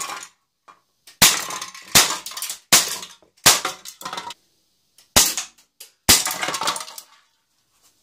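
Umarex Beretta 90two CO2 airsoft pistol, a non-blowback gun, fired six times at an aluminium drinks can, roughly a second apart with a longer gap in the middle. Each shot is a sharp crack merged with the 6 mm BB striking the can, followed by a short clatter.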